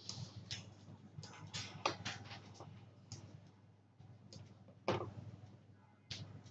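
Scattered computer mouse and keyboard clicks, about ten in irregular succession, with the sharpest about two and five seconds in, over a faint low steady hum.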